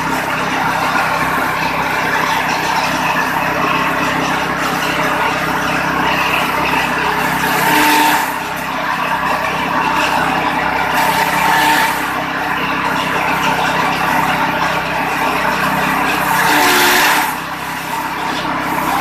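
Straw chopper running steadily, its motor humming under the rushing noise of its blades shredding dry rice straw. The chopping noise swells loudly a few times as armfuls of straw are pushed in.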